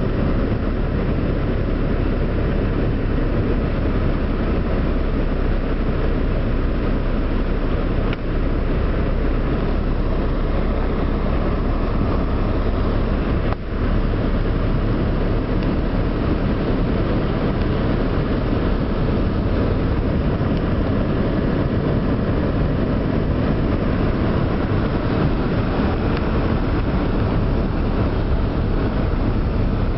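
Heavy rain pelting a moving car, heard from inside the cabin, blended with the rumble of the car's engine and tyres on the waterlogged road. A loud, steady rush that dips briefly twice.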